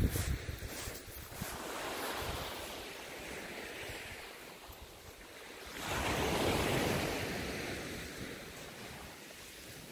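Sea waves breaking and washing up the beach, with one wave swelling loudly about six seconds in and fading over the next few seconds. Wind buffets the microphone at the start.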